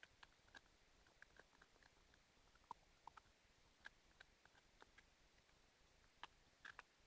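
Faint, irregular sticky clicks and squelches of slime being stirred in a container as borax activator is worked in, several small clicks a second with a few sharper ones near the end.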